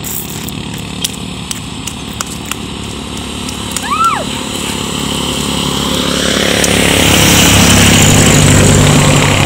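Roadside traffic: a motor vehicle's engine grows louder from about halfway through and is loudest near the end as it passes close by. A brief rising-and-falling call sounds about four seconds in.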